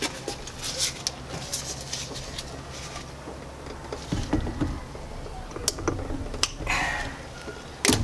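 Long-handled crimping tool clicking and clacking as it is squeezed down on a ring terminal on a battery cable, without the correct dies for it. A few dull thumps come about halfway through, and a sharp click comes near the end.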